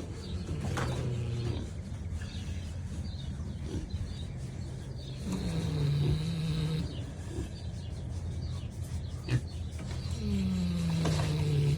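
Kunekune pig snoring: three drawn-out snores about five seconds apart, each dropping slightly in pitch. There is a brief sharp knock about nine seconds in.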